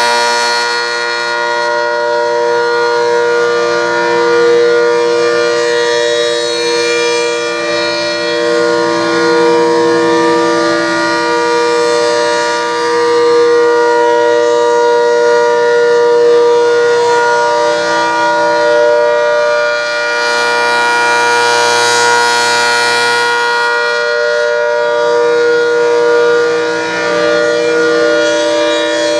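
ACA Hurricane MKII outdoor warning siren sounding the Alert signal: a loud, steady chord held at constant pitch, swelling and fading every few seconds as the rotating head sweeps past.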